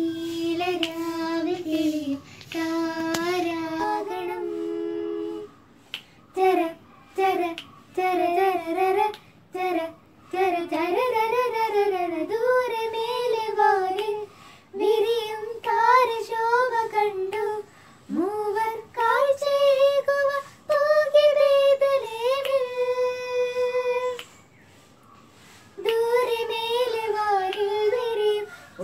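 Two girls singing together without accompaniment, in sung phrases with short breaths between them and a longer pause near the end.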